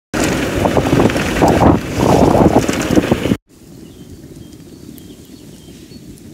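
Loud, gusting wind noise on the microphone for about three seconds, cutting off abruptly. Then a much quieter outdoor ambience of low wind rumble with faint bird chirps.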